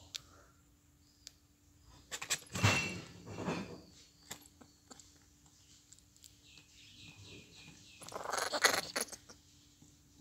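Two bursts of scratching and rustling on a cardboard box, one about two seconds in and a shorter one near the end, as a young grizzled giant squirrel clambers on the box's edge and is handled.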